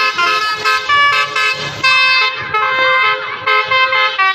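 Basuri telolet bus horn, an electric multi-trumpet horn, playing a quick melody of short notes, several pitches sounding together.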